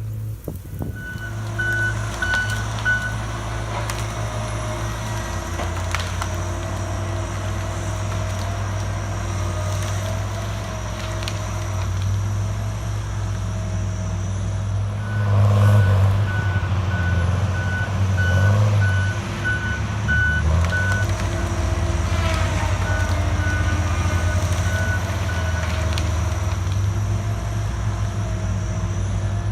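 Heavy tree-removal machinery with its diesel engine running steadily under load. A reversing alarm beeps in a short run about two seconds in, then again for several seconds around the middle.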